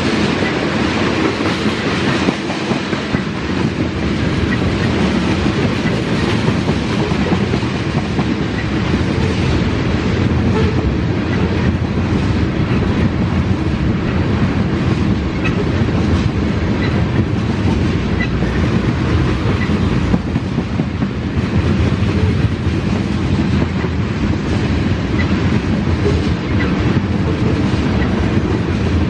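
Tank cars of a freight oil train rolling past at track side, a steady noise of steel wheels running over the rails.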